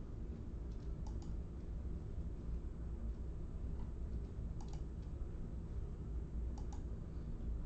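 Faint short clicks in three small clusters over a steady low hum.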